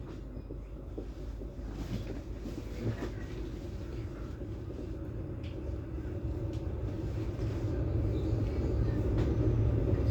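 Passenger train hauled by a DM62 diesel locomotive pulling away from the station, heard from aboard: a low rumble that grows steadily louder as it gathers speed, with scattered clicks and knocks.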